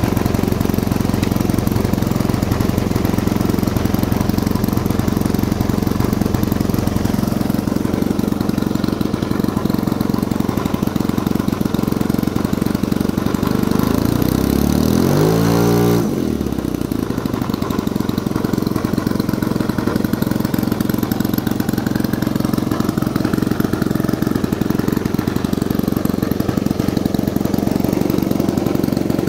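Saito 125GK four-stroke model aircraft engine running steadily on the ground, turning a propeller that is too large for it. Its tone shifts briefly about halfway through and is slightly duller and quieter afterwards.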